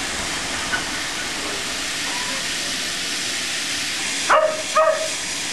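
Steam locomotive passing close, with a steady hiss of steam escaping from its cylinder drain cocks. A dog barks twice near the end, louder than the locomotive.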